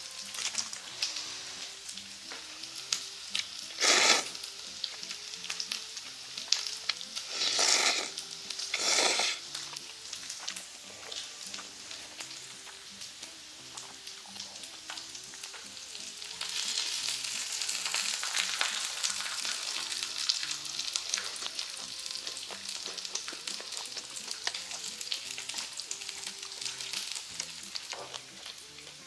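Pork belly sizzling on a griddle over a portable gas burner, a steady frying hiss with small clicks of chopsticks and dishes. There are three short louder noises about four, eight and nine seconds in, and the sizzle gets louder from about halfway through.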